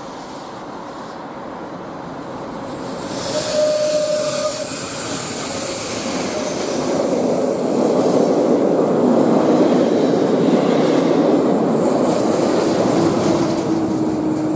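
A train passing close by, its wheels running on the rails with thin, steady squealing tones over the rolling noise. It grows louder from about three seconds in and stays loud to the end.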